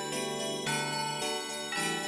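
Christmas background music with jingling sleigh bells over instrumental chords that change about every half second.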